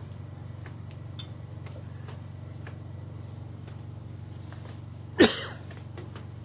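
A person sneezes once, loudly, about five seconds in, set off by dust, over a steady low hum.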